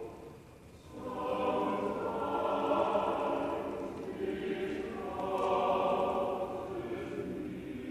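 Church choir singing slow, sustained phrases; after a brief lull at the start, the voices come back in about a second in.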